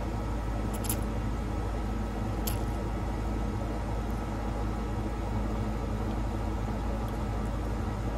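Steady machine-like hum over a constant background noise, with two brief clicks about one and two and a half seconds in.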